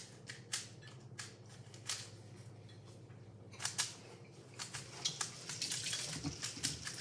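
Rubik's cube being turned by hand: sharp plastic clicks of the layers snapping round, scattered at first, then quick dense turning from a little past halfway.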